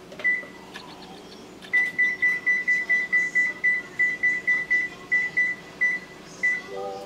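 Whirlpool electric range's control panel beeping with each key press as the oven is set: one short high beep, then a quick run of about twenty identical beeps at roughly four a second, and one more near the end.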